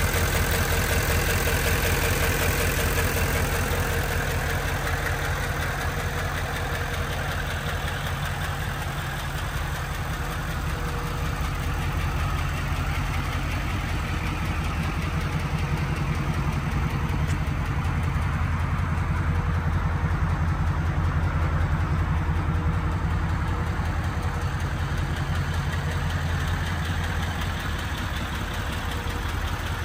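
Chevrolet Silverado 3500HD's turbo-diesel V8 idling steadily, with an even diesel clatter.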